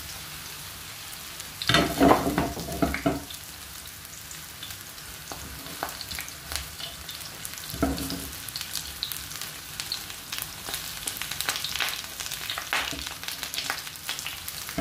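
Button mushrooms sizzling in hot olive oil in a frying pan, a steady hiss with small crackles that grow busier toward the end. Louder thuds and clatters come about two seconds in and again near eight seconds.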